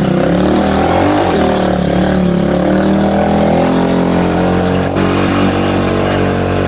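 Motorcycle engine running and revving as the bike pulls away. The pitch rises and falls about a second in, then holds fairly steady.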